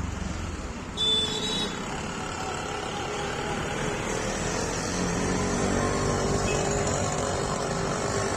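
A motor vehicle's engine running steadily, with a short, loud, high-pitched sound about a second in.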